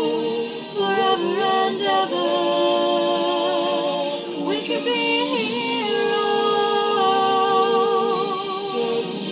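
Two voices singing a love-song duet unaccompanied, a woman's voice among them, holding long, drawn-out notes with vibrato.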